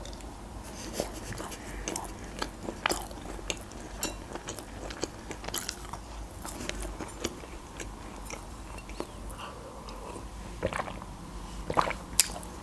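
Chewing a mouthful of quiche with a crisp shortcrust pastry base: scattered small crunches and wet mouth clicks, with a few sharper clicks near the end.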